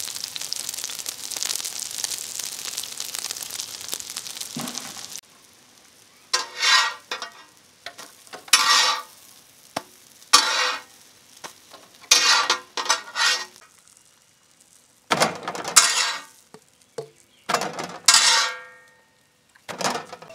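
Mutton omelettes sizzling steadily in oil on a flat iron tawa; about five seconds in the sound cuts to a metal spatula scraping across the tawa in a series of short strokes as the omelettes are turned.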